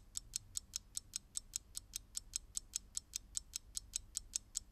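Fast, even ticking of a clock sound effect, about five sharp ticks a second, timing a thinking pause.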